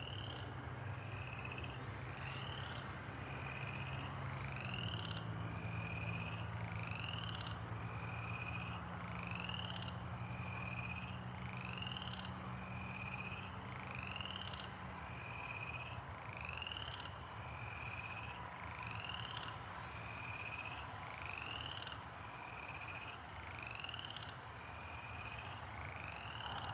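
A frog calling over and over, a short level note alternating with a quick rising peep, about once a second. A low steady hum runs beneath it.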